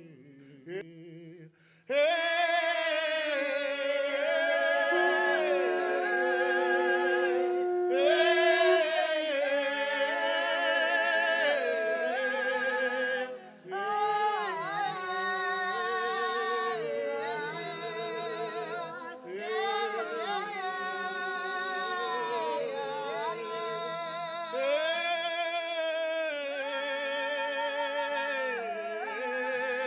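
Background music of layered singing voices in long held notes with strong vibrato, with little or no instrumental backing, starting after a brief pause about two seconds in.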